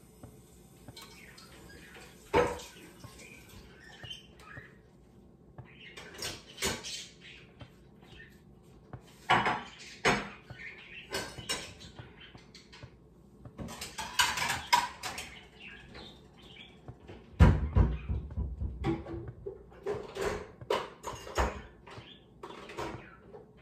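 Dishes, pots and utensils clattering on and off in a kitchen, in short irregular runs of clinks and knocks. The loudest is one heavy thump about three-quarters of the way through.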